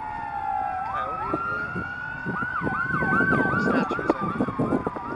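Emergency vehicle siren passing: a long wail that falls, then rises, switching about two seconds in to a fast yelp of about three cycles a second. Uneven low noise runs underneath.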